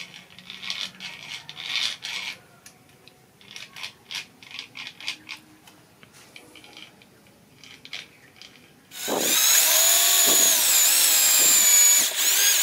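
Bevel gears of a homemade RC-truck rear axle clicking and rattling as the threaded axle is turned by hand. About nine seconds in, a handheld electric drill starts and runs loudly, its motor whine wavering in pitch as it bores into the axle housing.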